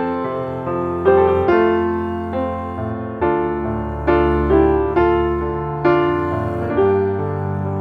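Background piano music: gentle chords struck about once a second, each dying away before the next.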